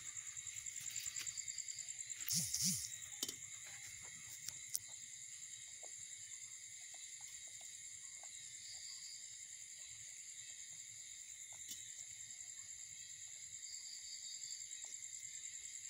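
Steady high-pitched trilling of insects in the background, with two quick breathy puffs about two and a half seconds in and a few faint clicks.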